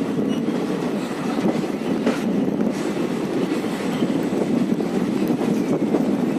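Passenger train in motion, heard from aboard: a steady running noise of wheels on rails.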